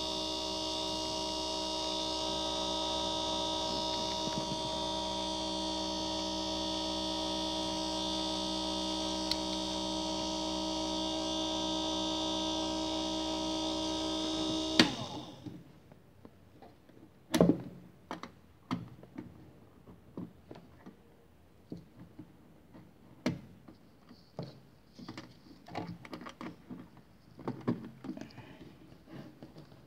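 A 775-size brushed DC motor running unloaded at a steady speed, with a steady whine and hum. About halfway through it is switched off with a sharp click and stops at once. After that come scattered clicks and knocks from handling the wires and clips.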